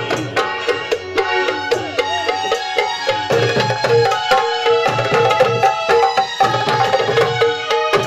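Instrumental folk music with no singing: a steady hand-drum rhythm, deep strokes under sharper ones, beneath held, repeating melody notes.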